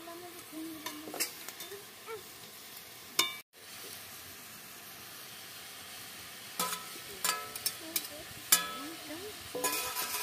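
Metal spatula scraping and clinking against a steel pan of frying cauliflower, over a steady sizzle. The sharp clinks ring on briefly and come several times, most of them in the second half. The sound cuts out for a moment about a third of the way in.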